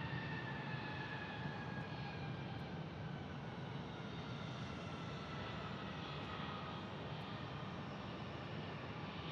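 Jet airliner engines running, with a high whine that glides slowly down in pitch over a steady low rumble.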